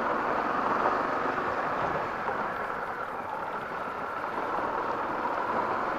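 Honda XRE 300's single-cylinder engine running as the motorcycle rides slowly over a cobblestone street, with steady road and wind noise.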